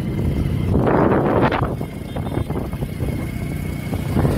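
Motorcycle ridden along a dirt road: the engine's steady rumble mixed with wind on the microphone, with a louder rush of noise about a second in.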